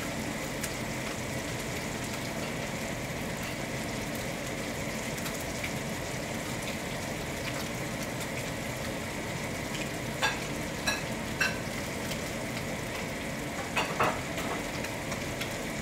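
Chicken thighs sizzling steadily in a stainless steel frying pan over a gas burner. A few sharp clinks are heard, three around ten to eleven seconds in and two around fourteen seconds in.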